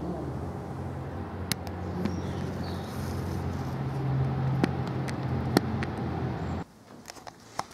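A steady low mechanical hum, like an engine or machine running, with a few sharp ticks over it; it cuts off abruptly near the end.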